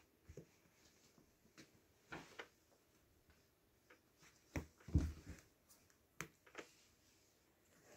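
Cats moving about in a cushioned cat bed: faint scattered clicks, taps and rustles, with a soft low thump about five seconds in.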